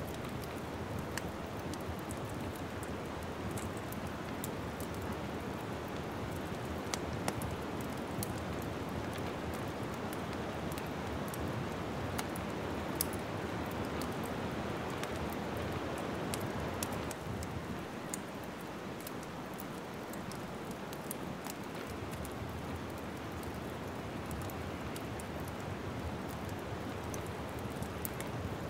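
Wood fire crackling in a fireplace: a steady rush of flames with frequent sharp pops and snaps scattered through it, settling a little quieter about halfway through.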